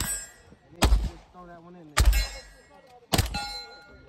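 Three gunshots about a second apart on a firing range, each sharp crack followed by a decaying tail. A clear metallic ring hangs on after the last shot.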